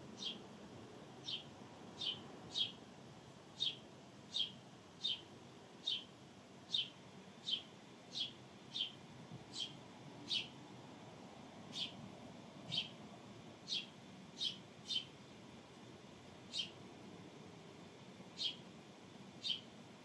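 House sparrow cheeping: single short chirps repeated at irregular intervals, roughly one a second, with a pause of a second or two in the later part.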